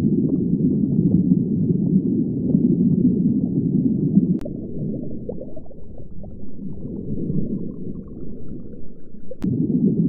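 Muffled underwater ambience: a low rumbling wash with faint gurgles, dropping quieter a little past four seconds in and coming back up near the end, with a faint click at each change.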